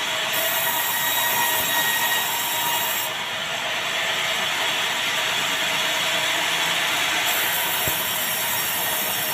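Sawmill band saw running steadily as its blade cuts through meranti timber.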